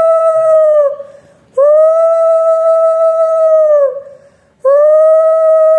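Conch shell (shankha) blown in long, steady, loud blasts: one ends about a second in, a second lasts a little over two seconds, and a third starts near the end, each sagging in pitch as it fades. It is blown as the ritual pot is set in place in a Hindu puja.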